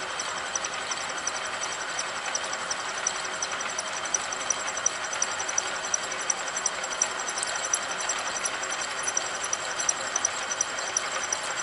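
Milling machine running with a long helical end mill cutting into the edge of a metal cam blank as the dividing head slowly turns it under power table feed. A steady machining noise with a thin high whine and light, irregular ticks.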